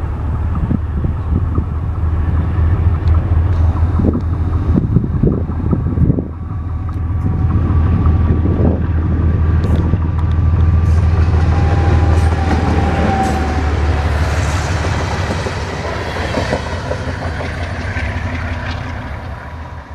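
GE B23-7 diesel locomotive running as it approaches at the head of a passenger train, with wind buffeting the microphone for the first few seconds. After a cut about six seconds in, the locomotive and passenger cars pass close by with the clatter of wheels on rail, which fades as the train draws away near the end.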